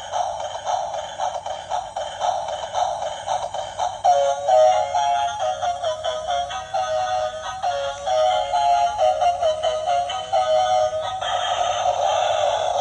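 Thin, tinny electronic music with a synthetic-sounding voice and no bass. A fast stream of short notes gives way to a stepping melody about four seconds in, and it turns denser and fuller near the end.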